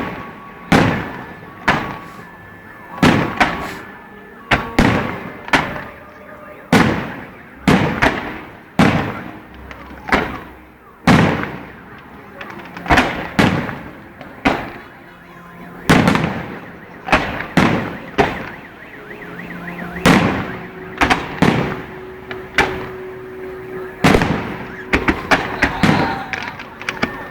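Aerial fireworks shells bursting in a steady barrage, about one or two sharp bangs a second, each trailing off in an echo, with a quick cluster of bangs near the end. Short steady tones sound between the bangs, one held for several seconds past the twenty-second mark.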